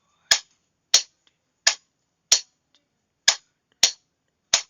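A Morse key being worked to send practice letters: sharp single clicks about every two-thirds of a second, seven in all, with no tone.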